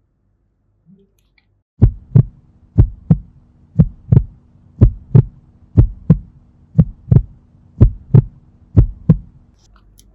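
Electronic heartbeat sound effect: a lub-dub double thump repeating about once a second, eight beats in all, over a faint steady hum. It starts about two seconds in.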